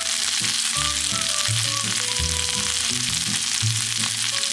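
Napa cabbage, carrot and ginger sizzling steadily in a hot frying pan as they stir-fry, with background music underneath.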